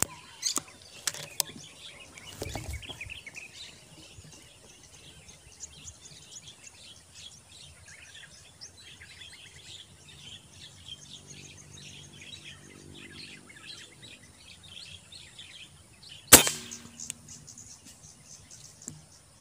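Birds chirping steadily in the trees, with a few sharp clicks in the first second and a half. About three-quarters of the way through comes a single sharp crack from a Predator Tactical CNC PCP air rifle firing, the loudest sound.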